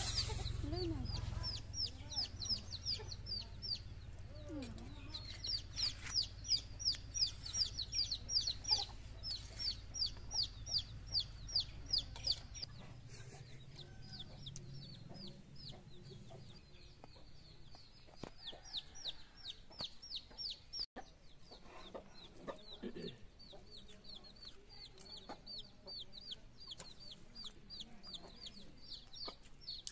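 Chickens: a long run of short, high peeping calls, about four a second, with a few lower clucks. A low steady hum runs underneath until about halfway through.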